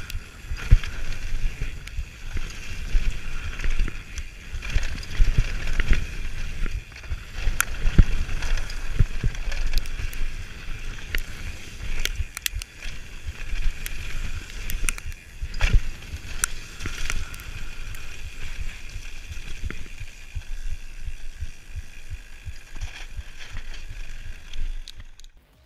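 Mountain bike riding fast down a dirt and gravel trail, heard from a rider-mounted GoPro Hero 3+ Black: steady wind rumble on the microphone and tyre noise over the dirt, with frequent sharp knocks and rattles from the bike over bumps. It cuts off suddenly near the end.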